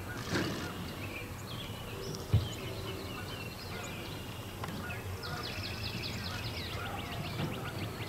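Open-air ambience with small birds chirping, turning into a fast run of quickly repeated chirps about five seconds in. A single low thump sounds about two seconds in.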